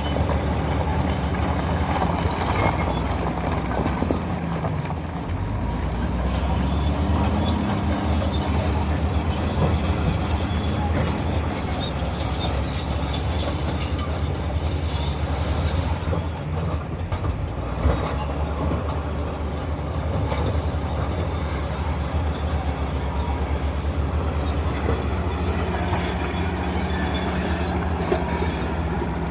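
Bulldozer's diesel engine running steadily under load, with the clatter and high squeal of its steel crawler tracks.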